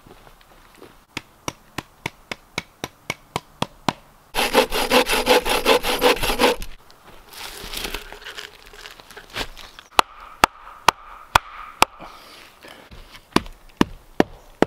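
Camp hand saw cutting through a dead log: a run of even strokes, then a louder, fast burst of sawing about four seconds in, then slower strokes with sharp ticks.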